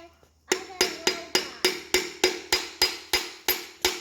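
A hammer tapping steadily, about three to four ringing metallic blows a second, starting about half a second in, driving a stuck piston and connecting rod out of a Toyota 22RE engine block's cylinder.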